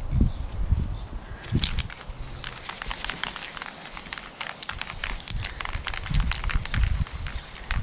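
Aerosol spray paint can spraying black paint: a steady hiss with a fine crackle that starts about two seconds in, over scattered low thumps.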